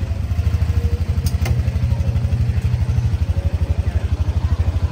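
Engine idling close by with a steady, rapid low throb. Two light clicks about a second and a half in.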